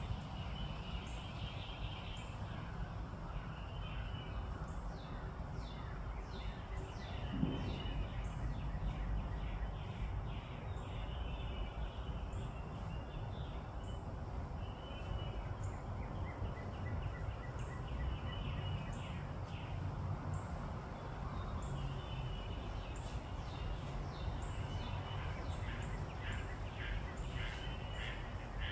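Birds calling in the trees: clusters of quick chirps coming in short runs, with a thin high note repeating every second or so, over a steady low outdoor background noise.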